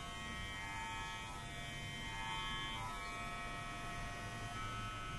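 Wahl Super Taper corded hair clipper running with a steady, even buzz from its electromagnetic motor and vibrating blades, held in the hand and not cutting.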